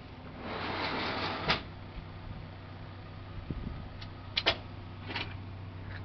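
Footsteps and camera handling noise: a rustle in the first second and a half ending in a sharp click, then a quick double click about four and a half seconds in, over a low steady hum.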